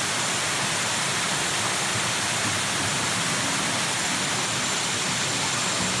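Small waterfall pouring over rocks into a pool: a steady rush of falling water.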